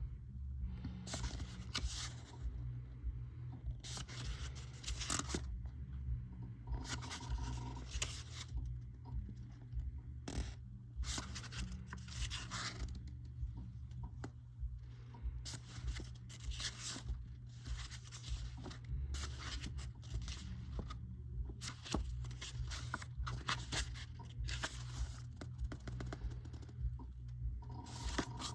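Paper and cardboard packaging being handled: irregular rustling and scraping, as booklet pages and box parts are moved and slid, over a low steady hum.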